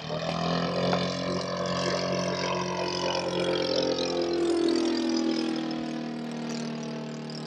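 Radio-controlled scale Fieseler Storch model flying past overhead, its engine and propeller droning steadily. Over the last few seconds the pitch drops slightly and the sound fades a little as it moves away.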